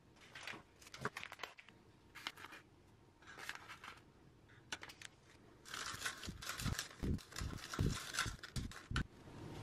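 Faint clicks and scrapes of a scoop in a cup, then, about six seconds in, a busier stretch of scratchy stirring with light knocks as dry citric acid and baking soda are mixed together.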